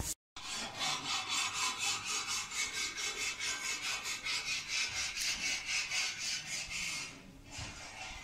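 After a brief dropout at the very start, a steady rhythmic rasping at about three strokes a second: a handheld camera's microphone rubbing as the camera is carried at a walk.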